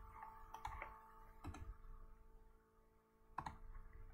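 A few faint computer mouse clicks over a low steady hum.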